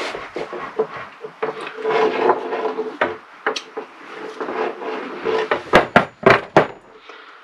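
Hand tools being handled on a wooden shelf: rubbing and clicking as a crimping tool is worked on a cable lug, with a quick run of sharp knocks about six seconds in as tools are set down on the wood.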